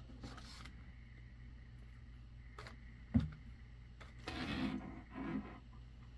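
Handling noises of an unboxing: a sharp knock about three seconds in, then two short rustling scrapes, over a steady low hum.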